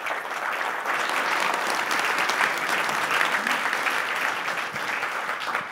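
Audience applauding at the end of a talk, steady clapping that dies away near the end.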